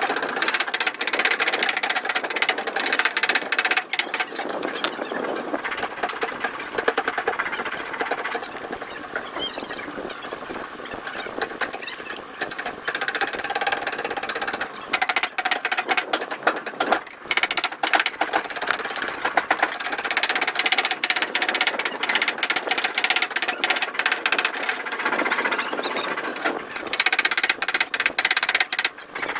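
Fast, rattling hammering of a power tool, running in quick irregular strikes. It eases for a few seconds in the middle and picks up again toward the end.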